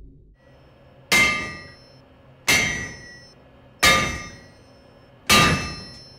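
Four ringing metal clangs about a second and a half apart: a heavy tool being hammered against a metal safe to break it open.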